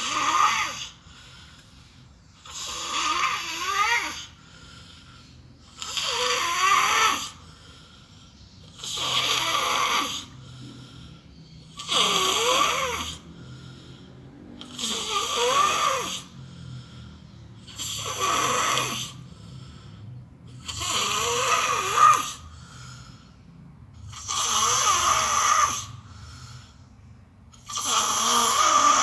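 A person snoring heavily: ten loud snores, one about every three seconds, each lasting about a second, with quiet breathing between.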